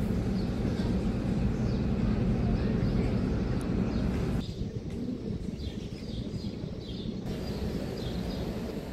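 Outdoor ambience: small birds chirping over a steady low rumble. A little over halfway through, the higher hiss drops away and the level falls slightly.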